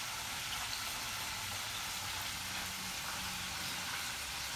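Chicken wings deep-frying in hot oil, a steady sizzle.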